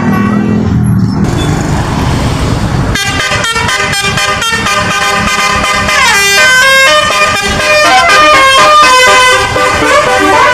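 Indonesian bus "telolet" basuri multi-note air horn playing a fast melody of pitched notes, with a few sliding notes. About three seconds of rumbling noise come before it.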